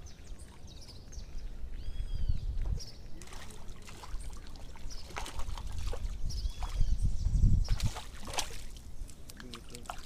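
Water sloshing and trickling, with irregular splashes about halfway through and wind rumbling on the microphone.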